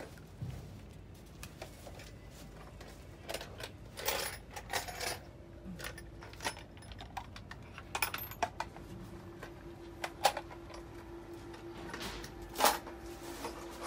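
Scattered light knocks and metallic clinks, the loudest about ten and thirteen seconds in, with a steady hum coming in about five seconds in.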